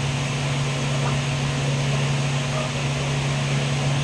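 Electric fan running with a steady low hum and an even whoosh of air.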